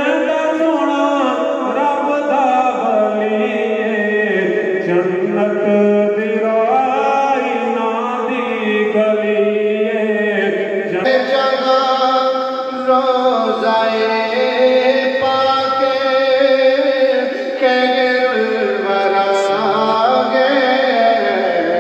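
A man's voice singing a devotional melody in long lines that glide up and down in pitch.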